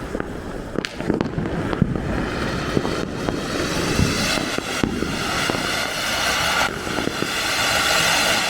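Fireworks going off: a steady rushing hiss that grows louder through the second half, with scattered sharp pops and cracks of firecrackers throughout.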